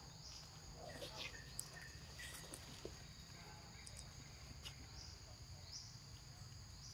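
Faint, steady high-pitched drone of insects, with short rising chirps every second or so and a few soft clicks.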